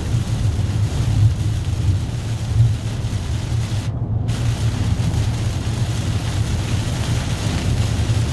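Steady low rumble of a car's engine and tyres with a continuous hiss over it; the hiss cuts out briefly about four seconds in.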